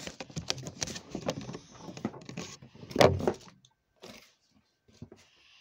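Handling noise from small gift items being packed into a makeshift package: rustling and clattering, with a loud knock about three seconds in, then only a few faint rustles.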